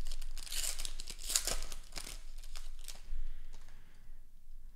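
Upper Deck Marvel Beginnings trading card pack wrapper being torn open and crinkled, mostly in the first three seconds, then quieter rustling of the wrapper and cards.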